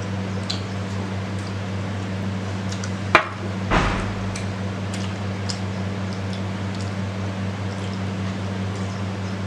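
Steady low electrical hum, with faint eating clicks at the table. A sharp click about three seconds in is followed by a short, louder clatter.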